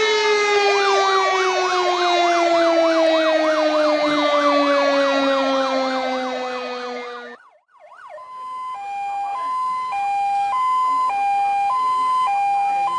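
Sirens. A deep siren tone winds slowly down while a fast wavering yelp siren runs over it, and both cut off about seven and a half seconds in. A fire engine's two-tone siren then starts, switching between a high and a low note about every half second.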